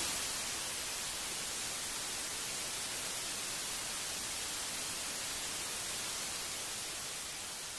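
Analog TV static: a steady, even hiss of white noise, easing slightly near the end.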